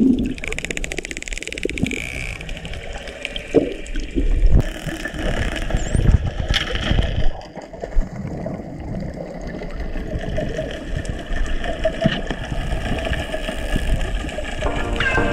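Underwater noise picked up by a diving camera: water rushing and sloshing with low rumbling and scattered knocks.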